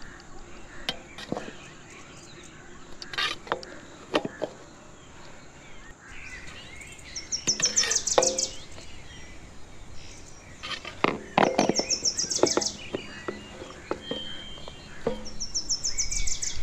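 A bird's quick, high trill, given three times about four seconds apart, with scattered knocks and clicks between.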